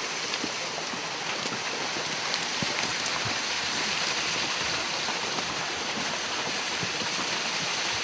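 Steady rushing of a mountain stream spilling over a small waterfall into a pool, an even hiss that swells slightly midway.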